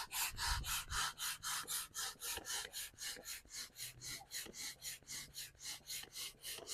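Air pump inflating a chamber of an inflatable kayak: quick, even pumping strokes, about five rushes of air a second.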